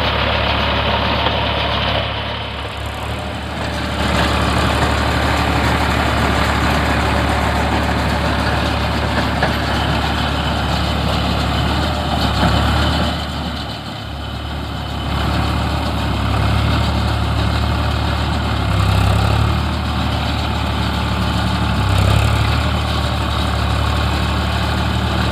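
Eicher 557 tractor's diesel engine running steadily. It drops in loudness twice for a second or two and swells a few times.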